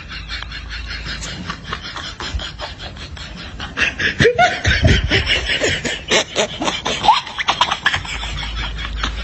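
Human laughter: a run of quick, breathy laugh bursts that gets louder from about four seconds in to about eight, with short rising squeaky voice sounds in the loud part.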